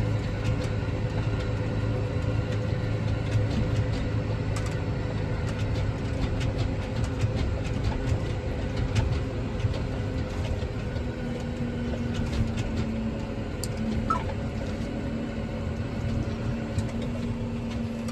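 Tractor engine running steadily, heard from inside the cab. A second, higher steady hum joins about eleven seconds in.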